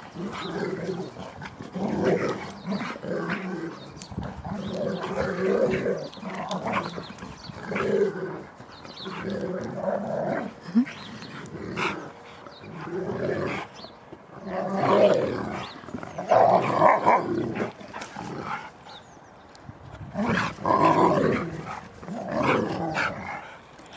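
Two huskies play-fighting, growling and grumbling at each other in irregular bursts.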